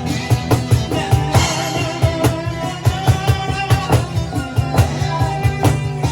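Rock band playing a song live, with electric guitar, heavy bass and a steady driving drum beat of several strikes a second.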